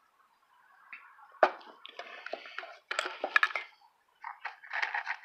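Handling noise close to the microphone: a sharp knock about a second and a half in, then bursts of rustling and crackling with small clicks.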